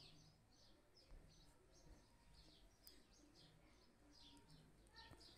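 Faint, rapid high chirping of small birds, short falling chirps at about three a second.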